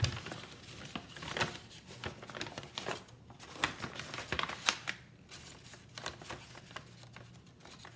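Scissors snipping into a paper bag, with the bag rustling as it is handled: a string of irregular crisp snips and crinkles.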